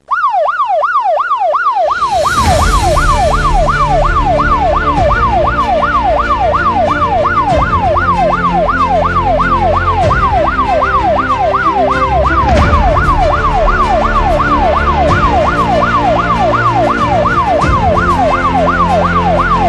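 Electronic yelp siren sweeping quickly up and down, about two and a half times a second, with music coming in under it about two seconds in.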